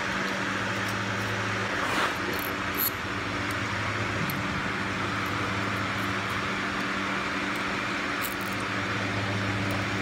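Steady hum and whir of a running electric fan. A few small metal clicks come about two and three seconds in as nuts are started on the rocker-arm studs.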